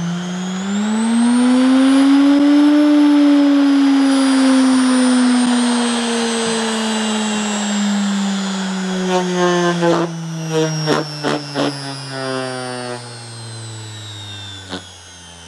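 Brushed (universal) washing-machine motor, fed through a drill-trigger speed regulator, whining up in pitch for about three seconds and then slowly winding down with a long falling whine. A few short knocks come in the last few seconds.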